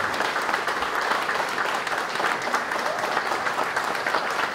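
Audience applauding in a standing ovation: many people clapping at once in a steady, dense patter.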